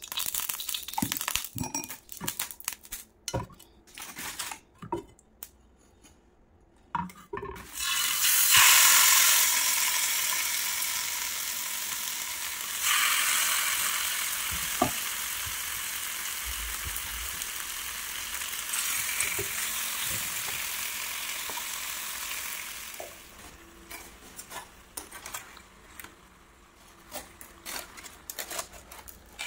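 Marinated chicken pieces going into hot oil in a nonstick frying pan: a loud frying sizzle bursts in about eight seconds in and slowly fades. It jumps louder again about five seconds later and drops away sharply near the twenty-three second mark. Before and after the sizzle there are scattered light clinks and taps of pans and utensils being handled.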